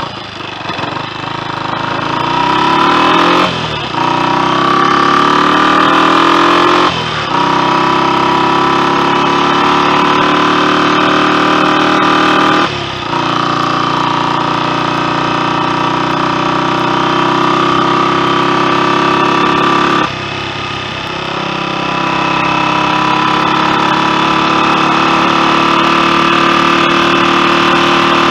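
Royal Enfield Continental GT 250's freshly rebuilt single-cylinder four-stroke engine under way. Its pitch climbs, with short breaks for gear changes at about 4 and 7 seconds in, then runs more steadily, with brief lifts of the throttle about 13 and 20 seconds in.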